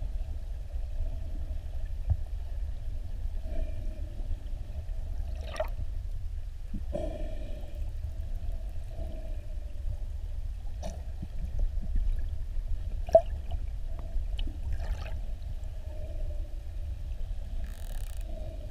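Underwater sound among bottlenose dolphins: a steady low rumble of water on the camera, with sharp clicks every couple of seconds and faint wavering calls.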